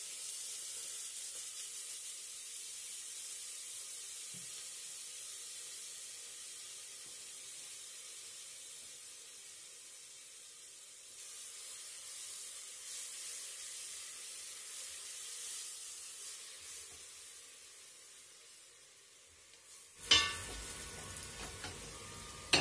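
Onions and green and red peppers sizzling as they fry in olive oil in a pot, the hiss slowly dying down. A few knocks and clatters come near the end.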